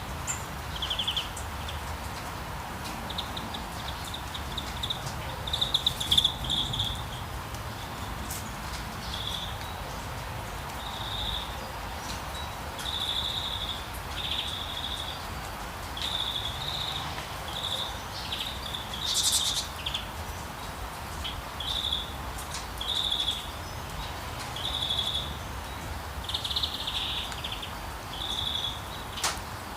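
Rainy-day ambience: a steady hiss of rain with a bird repeating short, high chirps every second or two.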